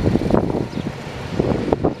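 John Deere 208 lawn tractor's engine running at full throttle under load while the tractor is driven, its sound rising and falling unevenly, with wind buffeting the microphone. The engine still bogs down under load, which the owner puts down to carburettor adjustment.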